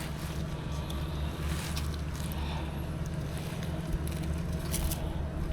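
A boat engine running steadily at low revs, a constant low hum, with a few light knocks.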